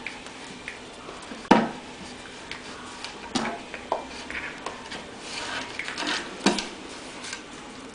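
A puppy and a kitten play-fighting on a wooden floor: irregular knocks, scrapes and patter of paws and bodies, the loudest knock about a second and a half in.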